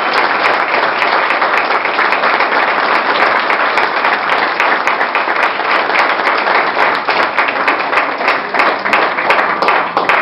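Guests applauding the newly pronounced couple's kiss, a dense run of many hands clapping at once.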